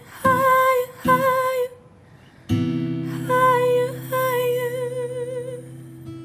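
A woman singing wordlessly with an acoustic guitar: two short held notes, then a strummed chord about two and a half seconds in that rings on under a longer held note with vibrato.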